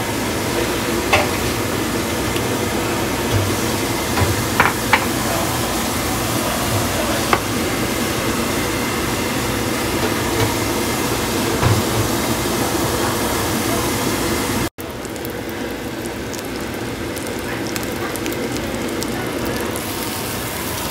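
Cabbage in egg wash frying in butter in a nonstick pan: a steady sizzle with a few light clicks. About two-thirds of the way through the sound drops out for an instant, then the sizzle carries on.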